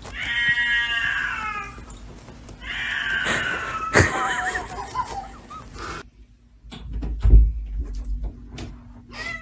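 A cat yowling: two long, drawn-out meows that sag in pitch, then a sharp knock about four seconds in. Near the end a low thump and a few clicks as a door is handled.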